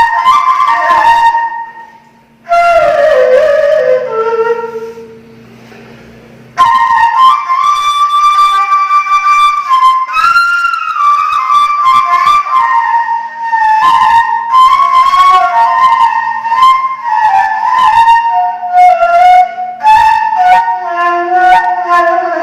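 Arabic ney, the end-blown reed flute, playing a solo improvised melody with a breathy tone. It breaks off briefly about two seconds in, plays a falling phrase, goes quieter for a few seconds, then picks up again with louder phrases from about six seconds in.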